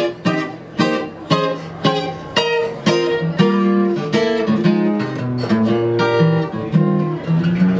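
Solo flat-top acoustic guitar playing a jazz tune, with sharply accented chords about twice a second for the first few seconds, then flowing, ringing lines of single notes and chords.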